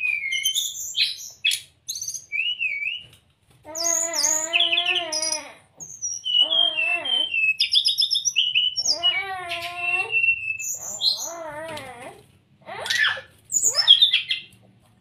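Brown-chested jungle flycatcher singing a varied song of high whistled notes, quick chips and slurs, broken by several longer, lower and buzzier phrases.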